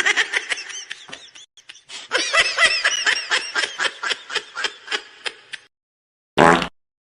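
Cartoonish laughter sound effect: a fast, high-pitched giggling cackle of many short syllables, about four or five a second, with a brief break after the first second and a half. It ends shortly before a separate short sound near the end.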